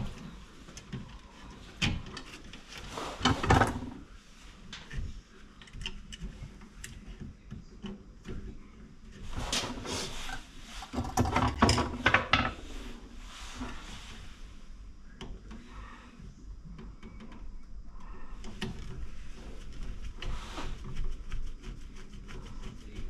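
Hands working on a wall socket outlet: irregular clicks, knocks and rubbing of plastic and metal parts. The handling is loudest about three seconds in and again around ten to twelve seconds in.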